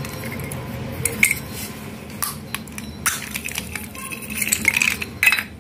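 Small baked clay pots and broken clay pieces clinking and rattling against each other as a hand turns them over in a heap, with scattered sharp clicks.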